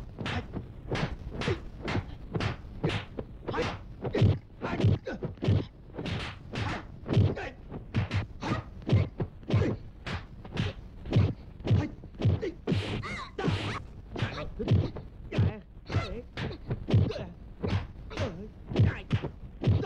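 Rapid series of dubbed punch and kick impact sound effects from a kung fu fight scene, sharp whacks and thuds coming about two to three a second.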